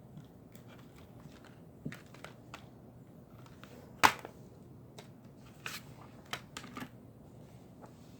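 Plastic Blu-ray/DVD case being handled: scattered light clicks and taps, with one sharp, loud click about four seconds in.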